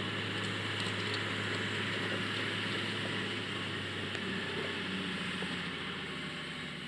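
Komatsu GD511A motor grader's diesel engine running steadily, with a constant low hum.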